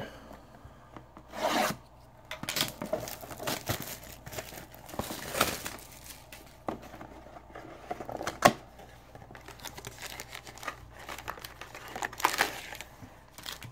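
Wrapping being torn and crinkled off a cardboard trading-card hobby box, with the box rubbing and scraping as it is opened. It is an irregular rustle with a few louder rasping rips.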